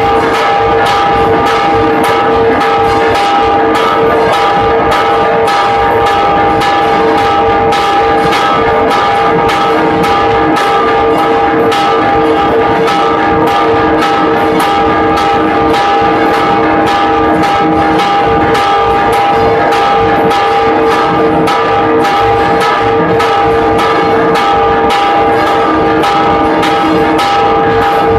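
Bronze church bells of Guadalajara Cathedral rung in a repique, the clapper pulled by rope to strike in quick, even strokes while the bells ring on continuously and loudly. This is the primera llamada, the first call to Mass.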